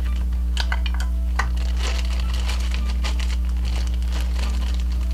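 Plastic bag of brown sugar crinkling and rustling in irregular bursts as it is handled and folded shut, over a steady low hum.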